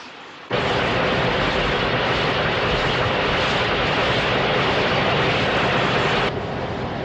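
Tunnelling excavator drill boring through rock: a loud, steady mechanical grinding noise with a low hum. It starts suddenly about half a second in and eases a little in level near the end.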